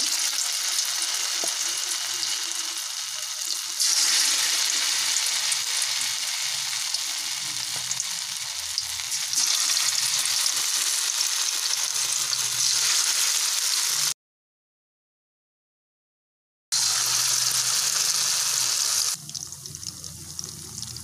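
Marinated, cornflour-coated chicken pieces deep-frying in hot oil in a wok: a loud, steady sizzle and crackle. It cuts off abruptly to silence for about two and a half seconds past the middle, then returns, growing quieter near the end.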